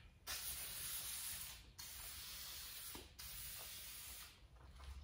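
VHT Nite-Shades aerosol spray can hissing in three passes, each just over a second long with brief breaks between them, as a second coat of tint goes onto a tail-light lens.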